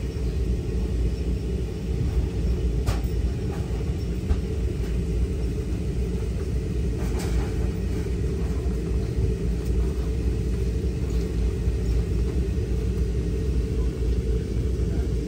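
Siemens Charger diesel-electric locomotive of a stopped Brightline train idling: a steady low rumble.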